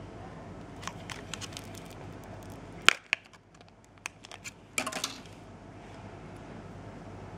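Hard plastic CPU packaging being handled: a string of small clicks and crackles, with a sharp snap about three seconds in and another cluster of clicks around the five-second mark.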